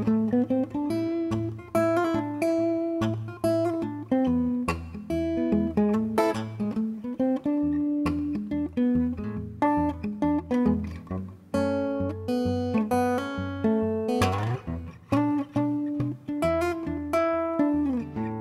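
Solo acoustic guitar playing a song intro, picked notes and strums with no singing, including a quick upward slide a little past the middle.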